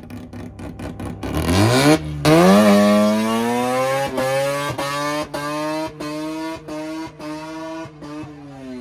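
An engine revs sharply up and is held at high revs for several seconds, stuttering in short regular dips, then falls away near the end.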